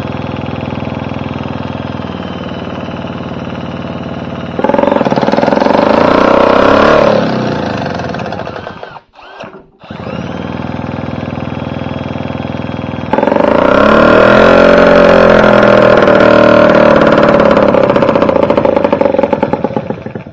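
1939 Elto Pal 0.9 hp two-stroke outboard motor spun over by a cordless drill on the flywheel nut. It catches about four and a half seconds in and runs loud with wavering speed, dies out around nine seconds, is spun up again, and runs from about thirteen seconds until it cuts off at the end. It is firing on a generic automotive ignition coil in place of its magneto, with the carburetor not yet dialed in.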